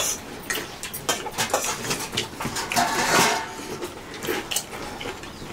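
Fingers scraping and clicking against a steel plate while rice and curry are mixed by hand, with a brief pitched sound about three seconds in.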